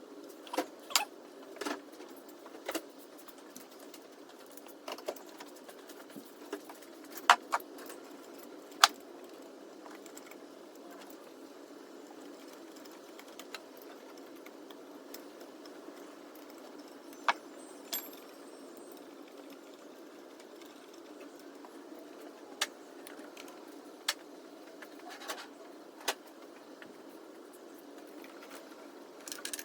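Scattered sharp clinks and taps of hand tools and bolts against the engine while a new water pump is fitted to a C5 Corvette's engine, over a steady low background noise.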